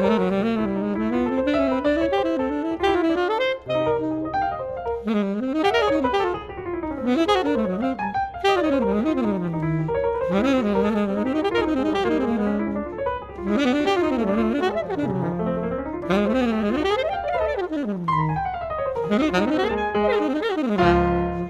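Jazz duet of alto saxophone and piano, the two playing fast lines that sweep up and down.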